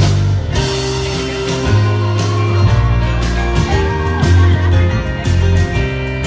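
Live rock-folk band playing an instrumental passage between sung verses: guitar, upright double bass and drums, with long held bass notes under a steady beat and no vocals.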